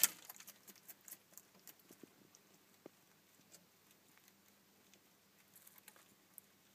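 Bearded dragon taking a giant mealworm from plastic feeding tongs with one sharp click, then chewing it: a run of faint, crunchy clicks that thin out over the next couple of seconds, with a few more near the end.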